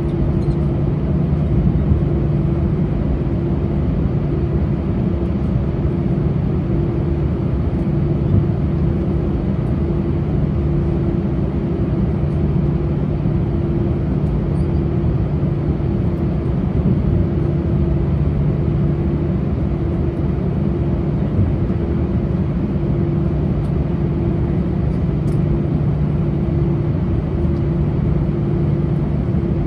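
Steady cabin noise inside an Airbus A319 taxiing at low speed: an even hum with a constant low tone.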